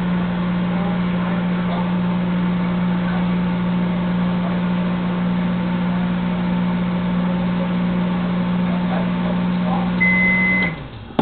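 Microwave oven running with a steady hum, then one long beep near the end as the timer finishes and the hum winds down, followed by a sharp click.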